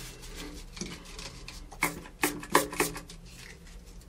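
Handling noise on the wooden subwoofer box: soft rustling, then four light knocks close together about two seconds in as the CA glue bottle is worked around the taped-in port.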